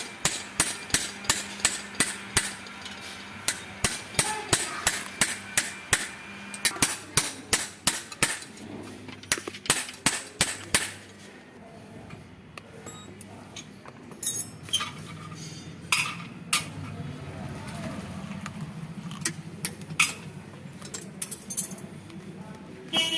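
Hammer blows on metal: quick sharp strikes at about three a second for roughly the first eleven seconds, then a few scattered knocks.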